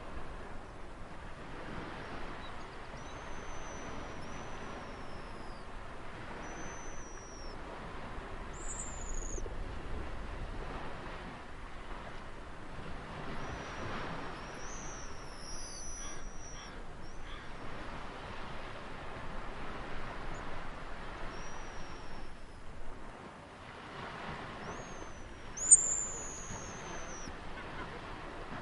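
Ocean surf washing steadily, with high thin bird calls over it: short falling whistles every few seconds, the loudest and sharpest about three quarters of the way through.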